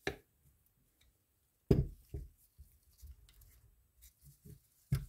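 Handling noise from a vintage Penn Spinfisher 850SS spinning reel and a screwdriver being worked and set down on a bench: three sharp knocks, the loudest just under two seconds in, with faint small clicks between.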